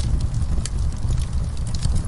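Wood fire burning in a fireplace: a steady low rumble of the flames with scattered sharp crackles and pops from the logs, the clearest about two-thirds of a second in.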